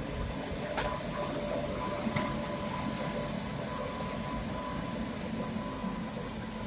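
Green Indian Railways electric locomotive moving slowly: a steady hum and rush of its running machinery with a faint whine, and two sharp clicks in the first few seconds.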